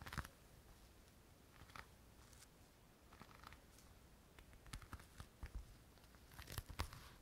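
Faint crinkling, small clicks and taps from small items from a cosmetics pouch being handled close to the microphone, with a busier cluster near the end.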